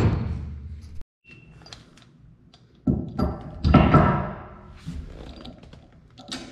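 Thumps and metal knocks from handling a heavy chrome 3-inch gooseneck hitch ball and setting it into the gooseneck socket in a steel pickup bed. A loud thump comes right at the start, a cluster of knocks with a slight metallic ring about three to four seconds in, and lighter clicks after.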